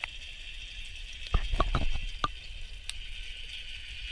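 Muffled sound from a camera submerged in a fish pond: a steady hiss, broken by a quick cluster of about six knocks and clicks between one and a half and two and a half seconds in.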